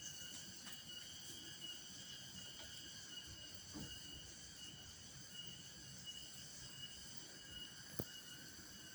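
Faint steady chorus of insects, a continuous slightly pulsing trill, with a single sharp click about eight seconds in.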